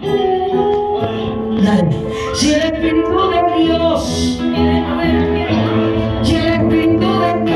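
Church worship song: a woman singing a slow melody over sustained instrumental accompaniment.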